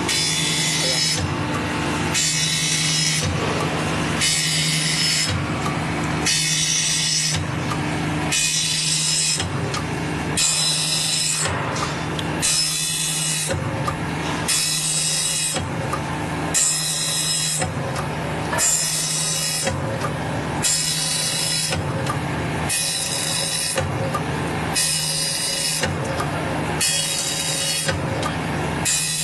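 MF-127 circular saw blade grinding machine running automatically over a steady motor hum, its grinding wheel rasping across one tooth after another in even strokes about every two seconds as it sharpens the blade.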